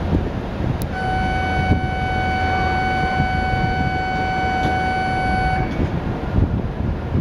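A steady electronic warning tone on the platform of a stationary E7 series Shinkansen, the departure signal as the doors close. It starts with a click about a second in, holds one pitch for about five seconds, then stops, over the train's constant low hum.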